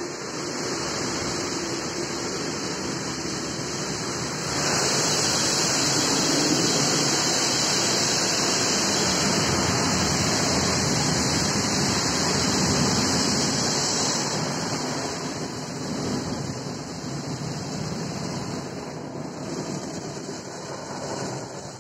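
An automatic car wash's water jets and brushes washing over the car, heard from inside the cabin as a steady rushing noise. It grows louder about four and a half seconds in, then eases a little after about fourteen seconds as the wash passes along the car.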